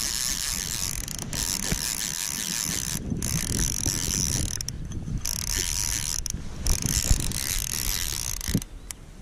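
Salmon fly reel's click-and-pawl ratchet buzzing in spells with short pauses while a hooked salmon is played, stopping near the end.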